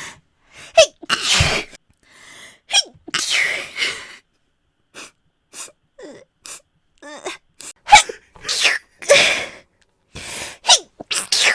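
A young woman's voice sneezing over and over: about a dozen separate sneezes, some loud and some small, in quick succession with short gaps between.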